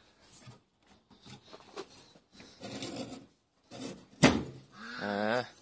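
Wooden latch bar on a rebar gate being worked by hand, with light scraping and rattling against the metal, then one sharp knock about four seconds in. A short wavering animal call follows near the end.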